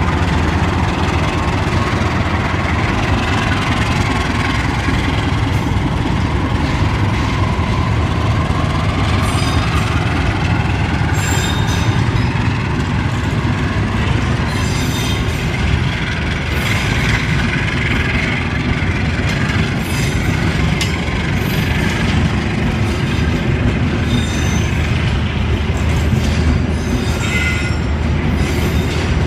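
Diesel-hauled passenger train rolling past: a steady low rumble of the locomotive and coaches, the wheels knocking over the rail joints, and several brief high squeals from the wheels along the way.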